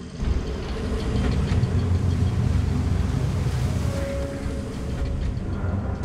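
Storm wind and heavy sea on a crab boat's open deck: a loud, steady low rumble with spray and clatter that comes in suddenly just after the start.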